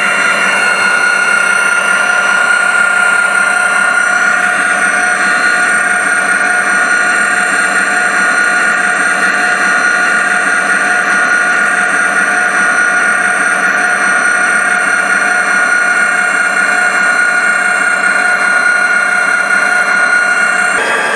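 Model freight train rolling past on the layout's track: a steady mechanical running sound with a steady high whine and no break.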